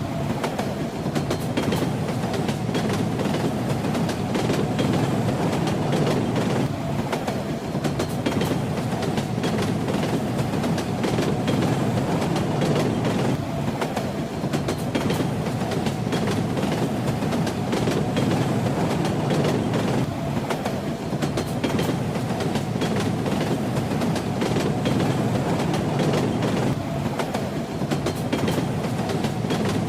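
Train running steadily: a dense low rumble with the rattling clack of the wheels over the rails and a faint steady hum.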